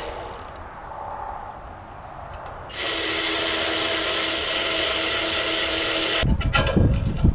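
Cordless drill driving bolts tight on a metal antenna mount: a short whir at the start, then a steady whir from about three seconds in that cuts off just after six seconds, followed by low rumbling and clicks.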